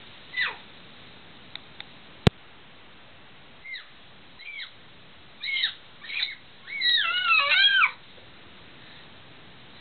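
A baby's high-pitched excited squeals: a few short rising-and-falling squeaks, then a longer warbling run of squeals near the end. One sharp click sounds about two seconds in.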